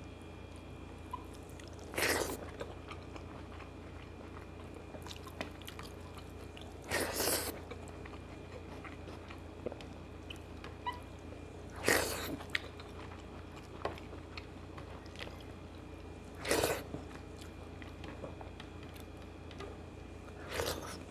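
A man eating rice and curry with his hands: quiet chewing and mouth clicks, with five short, louder noisy mouth sounds about every five seconds, over a steady low electrical hum.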